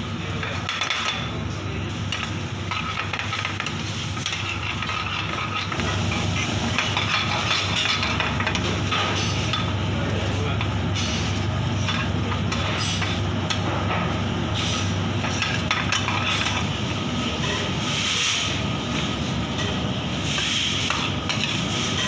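Penne in a thick cream sauce sizzling and bubbling in a steel pan while being stirred with a spoon, over a steady low hum.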